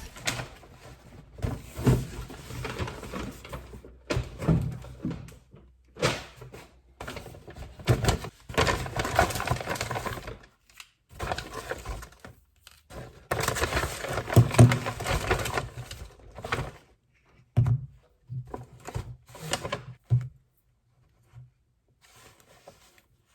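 Items and packaging being handled by hand: irregular rustling with light knocks and thunks, dying away about twenty seconds in.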